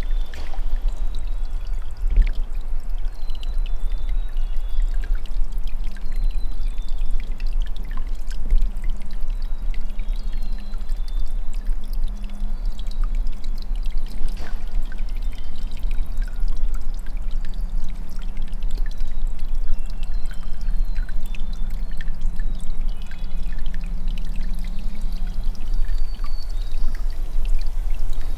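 Steady low rushing noise with faint, brief bird chirps scattered high above it.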